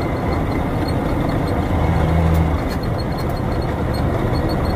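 Log truck's diesel engine and road noise heard from inside the cab while driving. A steady low engine drone swells briefly about two seconds in.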